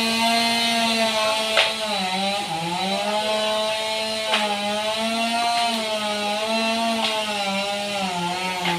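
Chainsaw engine running steadily at high speed. Its pitch sags briefly twice as the chain bites into wood, and three sharp cracks come a few seconds apart.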